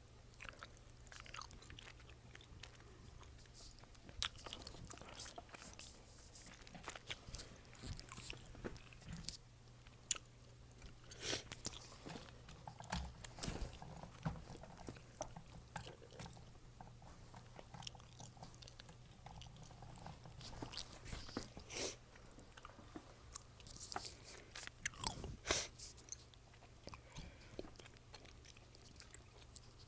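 Chewing gum chewed close to the microphone: irregular wet smacks, clicks and small pops, which come thicker and louder twice, about a third of the way through and again near the end.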